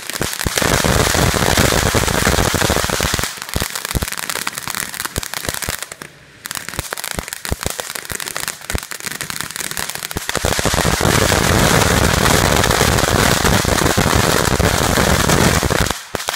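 Ground fountain firework spraying sparks with a dense hissing crackle. It is loudest at the start and again over the last five or six seconds, drops off briefly about six seconds in, and cuts off just before the end.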